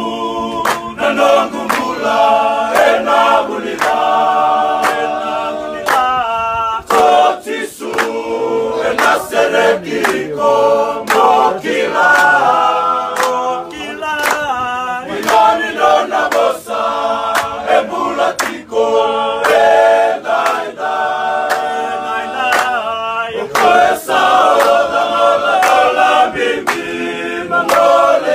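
A choir singing unaccompanied in several-part harmony, a song in Fijian.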